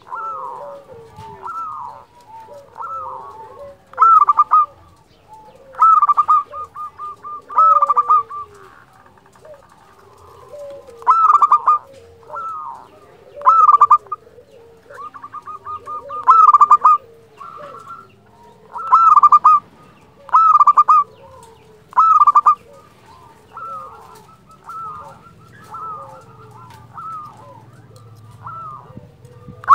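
Zebra dove (perkutut) singing: a dozen or so loud, flute-like cooing phrases about every two seconds, each a quick run of staccato notes, with quieter, lower cooing running underneath.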